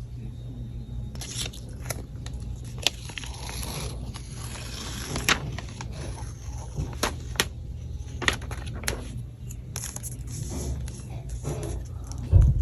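iPad box and packaging being handled and opened: paper and plastic scraping, tearing and crinkling, with scattered sharp taps, over a steady low hum. A heavy thump comes near the end.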